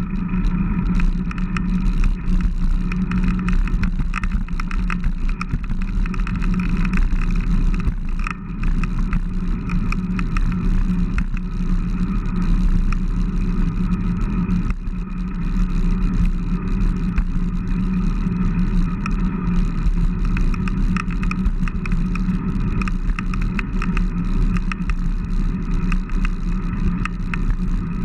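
Steady wind rush buffeting the microphone of a handlebar-mounted camera on a moving bicycle, with a constant low rumble from the tyres rolling on asphalt.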